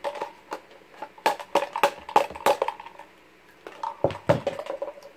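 Hollow plastic baby-doll parts knocking and clicking together as a loose leg is pushed at the doll's body: a quick, uneven run of sharp knocks, each with a short hollow ring. Two heavier knocks come about four seconds in.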